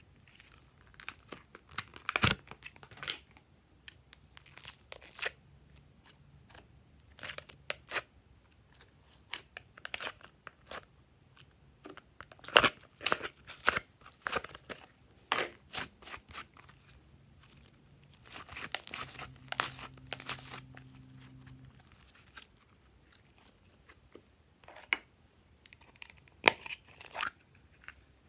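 Thin clear plastic tray crinkling and clicking in irregular bursts as fingers press glossy slime out of its wedge-shaped moulds, with sticky crackles as the slime peels away from the plastic. About two-thirds of the way through there is a longer, denser run of crackling.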